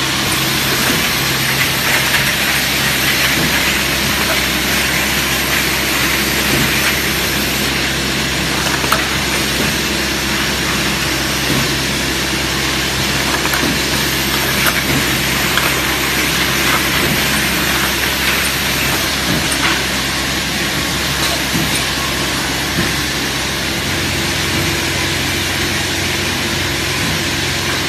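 Automatic bag-on-valve aerosol filling and crimping line running: a steady mechanical hum with hiss and occasional faint clicks from the machines.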